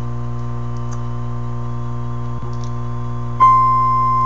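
Courier Centurion 40D CB radio's speaker receiving a signal generator's steady test tone: faint over a steady low hum while the generator is at half a microvolt, then suddenly much louder a little past three seconds in as the signal is stepped up.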